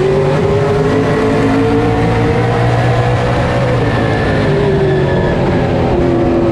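On-board sound of a stock car's V8 engine at racing speed: it pulls hard and climbs in pitch down the straight, drops sharply as the driver lifts about four seconds in for the turn, then picks up again near the end.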